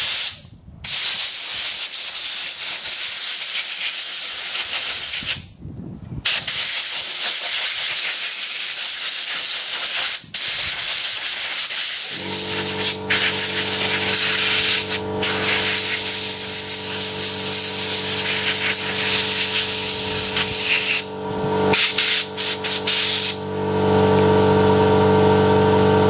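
Compressed air from an air-line blow gun blasting through a lawnmower carburettor. It comes as several long hissing bursts with short breaks between them, blowing the old fuel out. A steady hum joins about halfway through and continues under the blasts.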